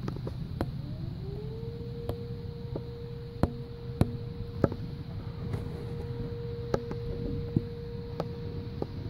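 An outdoor warning siren winds up in pitch about half a second in, then holds one steady tone. Beneath it is a low wind rumble, with scattered sharp clicks.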